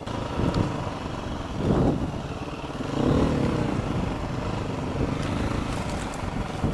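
Dirt bike engine running at low revs over a rough trail, its revs rising and falling briefly about two seconds in and again around three seconds in.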